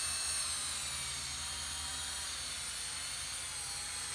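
Electric drill spinning a 3M Trizact 3000-grit sanding pad, wet-sanding a plastic headlight lens. It runs at a steady speed with a high, even whine.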